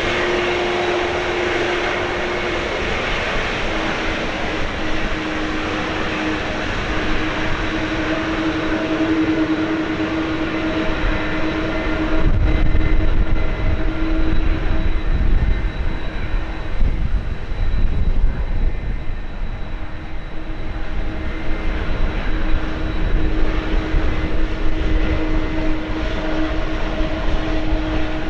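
Boeing 777-200ER's twin turbofan engines running at low thrust as the airliner taxis, a steady jet whine over a broad roar. About twelve seconds in, a deeper rumble comes up and the sound grows louder.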